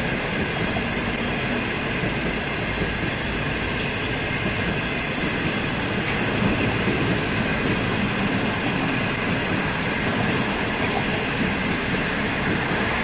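Green China Railway passenger coaches rolling steadily past, a continuous rush and rumble of steel wheels on rail that stays at an even level throughout.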